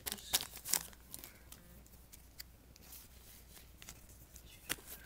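Faint crinkling and clicking of a foil card-pack wrapper and trading cards being handled, busiest in the first second, with one sharper click near the end.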